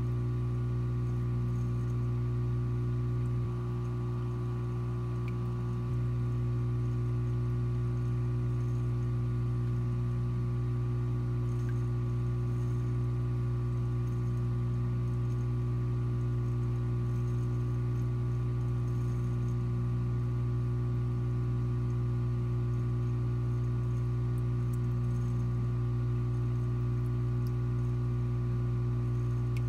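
Aquarium sump equipment humming steadily, with a low electric drone and a stack of even overtones, over faint water movement. It dips slightly in level for a couple of seconds about four seconds in.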